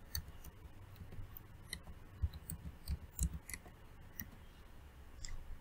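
Computer keyboard keystrokes: faint, irregular clicks as a word is typed.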